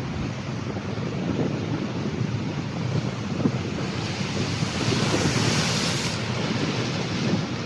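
Rough Atlantic surf breaking and washing, with wind buffeting the microphone. A brighter hissing wash swells about four and a half seconds in and stops sharply about a second and a half later.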